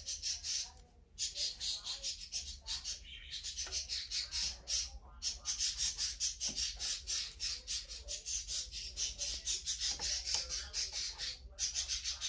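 Rapid high-pitched chirping: a steady train of about seven chirps a second with a few short breaks, over a low steady hum.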